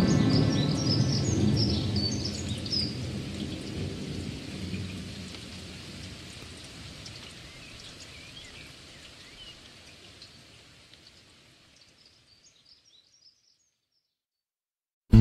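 Rain and thunder ambience with a few high bird chirps, fading out steadily into silence about two seconds before the end.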